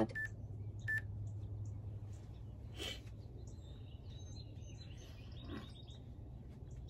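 Faint outdoor ambience: scattered bird chirps over a steady low hum, with two short electronic beeps in the first second.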